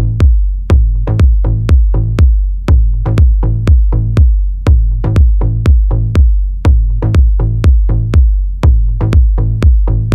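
Electronic background music with a steady drum-machine beat, about two heavy beats a second over a deep bass line.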